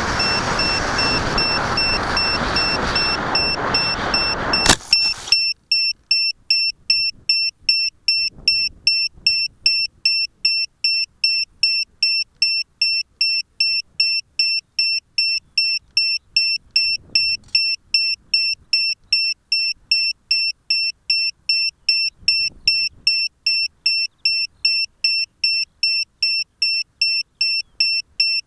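Wind rush and flight noise from a Skyfun FPV model plane. About five seconds in there is a sharp knock as it comes down, and the noise stops. An electronic beeper on the grounded plane then starts a steady high beep, about two and a half times a second, like a lost-model alarm sounding after the crash.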